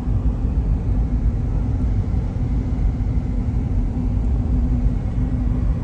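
Steady low rumble of engine and road noise inside the cabin of a Toyota Land Cruiser 80 Series (FZJ80) with its 4.5-litre 1FZ-FE inline six, cruising at an even pace.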